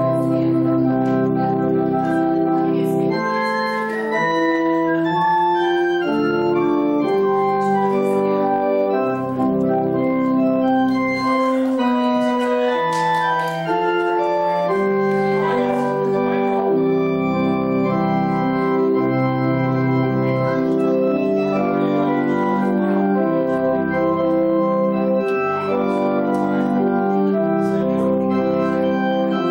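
Organ music: held chords with a slowly moving melody above them, playing steadily throughout.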